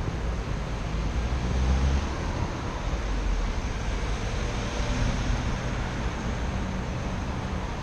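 Road traffic: cars and vans driving through a city intersection, a steady low rumble with a slight swell about two seconds in, heard from a stationary scooter's action camera.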